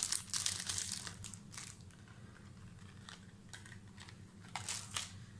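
Plastic packaging bag rustling and crinkling as it is handled, strongest in the first second or so, then a few short rustles near the end. A low steady hum runs underneath.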